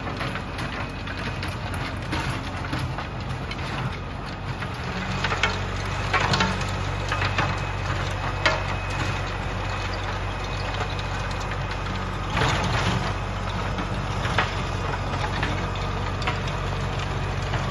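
LS compact tractor's diesel engine running steadily while pulling a PTO-driven rotary tiller through the soil, with a handful of sharp knocks at irregular intervals.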